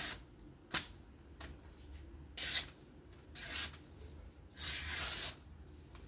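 Several short swishing strokes of a folding knife's edge slicing through paper, with one sharp click just under a second in.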